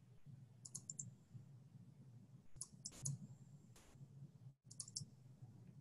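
Faint computer mouse clicks: small groups of quick clicks about a second in, around three seconds and near five seconds, over a faint low hum of room tone.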